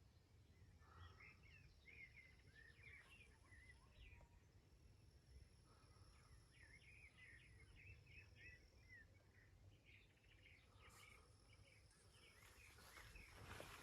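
Faint birdsong: many short, quick chirps and twitters from small birds, over a low background rumble and a faint steady high tone. Near the end a louder rustling noise builds.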